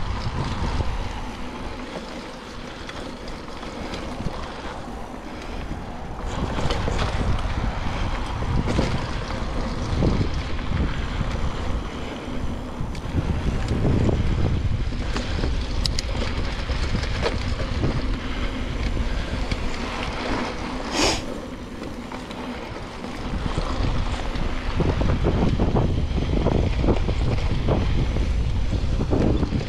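Wind rushing over a GoPro action camera's microphone during a mountain bike ride on dirt singletrack, mixed with tyre noise and knocks from the bike. It rises and falls in loudness, and there is one short sharp sound about two-thirds of the way through.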